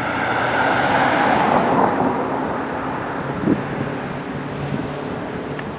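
A passing vehicle's rushing engine noise, swelling over the first two seconds and then fading, over a low steady hum.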